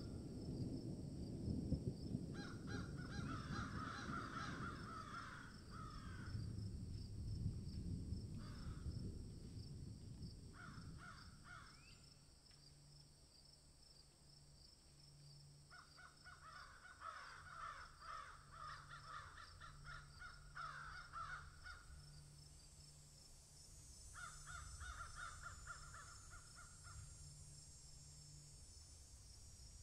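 Harsh, caw-like bird calls in several bouts of a few seconds each, with a steady high-pitched drone underneath.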